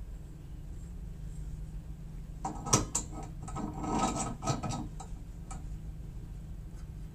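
Parts of a pet barstool clicking and scraping together as the crossbar tube is slid down onto the stool's upright post: a cluster of clinks and rubbing from about two and a half seconds in, lasting about two seconds, then a single small click.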